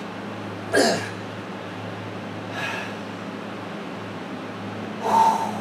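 A man breathing out hard after a set of leg lifts: a heavy exhale with a soft thump about a second in, a faint one midway, and a louder, more voiced one near the end, over a steady low hum.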